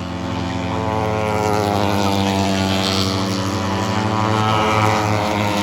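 Steady motor-engine drone with several pitches layered together, slowly getting louder through the middle and end.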